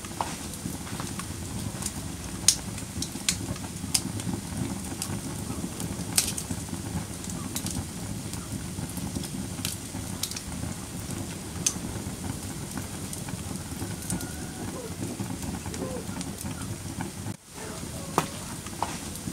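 Wood fire crackling in a fireplace: a steady low rumble with sharp pops every second or two. The sound cuts out for a moment about 17 seconds in.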